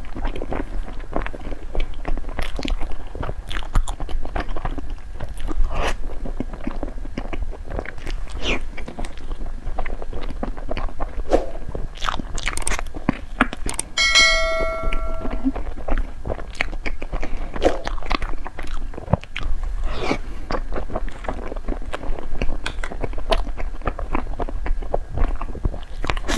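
Close-miked biting and chewing of snow-skin mochi desserts (雪媚娘), with many small bites and mouth sounds. About halfway through, a bright ringing chime sounds for about a second and a half.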